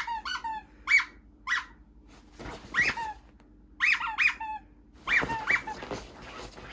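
Rubber squeaky dog toy squeezed again and again, about ten short squeaks in quick pairs and singles, each a rising squeak followed by a lower note as it is released.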